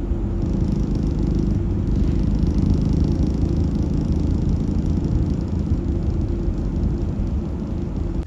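Car driving, a steady low rumble of road and engine noise.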